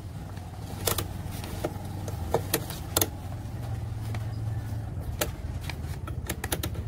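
Steady low hum, a little stronger around the middle, with scattered light clicks and taps, several close together near the end.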